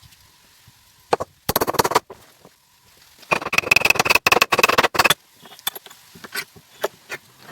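Bursts of rapid knocking, many sharp knocks a second: a short burst about a second in, another half a second long, and a longer one of nearly two seconds in the middle. Fainter scattered ticks come towards the end.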